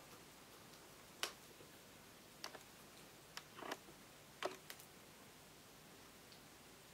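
A handful of faint, scattered clicks and snaps of small rubber loom bands being stretched by hand and pulled over a metal loom hook.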